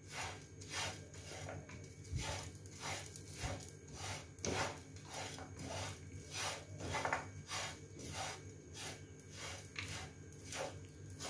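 Wooden spatula scraping and stirring roasting flattened rice (poha), grated coconut and cashews around a nonstick frying pan, in quick repeated strokes about two a second.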